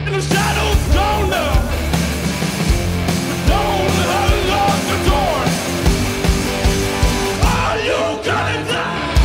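Live rock band playing: male lead vocals in short sung phrases over electric guitar, a drum kit with steady beats and keyboard.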